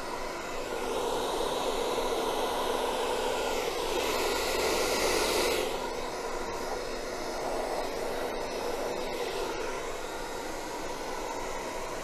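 Hand-held hair dryer on its low setting with a concentrator nozzle, blowing a steady rush of air over wet pour paint. It grows a little louder for a second or two, then eases off about five and a half seconds in.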